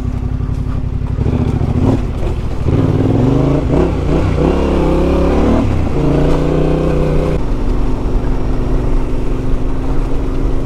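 Yamaha Ténéré 700's parallel-twin engine pulling a motorcycle along a dirt track. The revs rise and fall several times through the middle, then it runs more steadily for the last few seconds.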